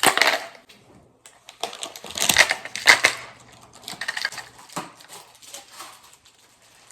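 Irregular clattering and rustling of things being handled, with louder bursts of clicks just after the start and again around two and three seconds in.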